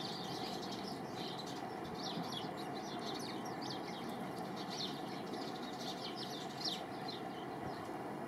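Small birds chirping again and again, many short high chirps that each drop quickly in pitch, over a steady background noise.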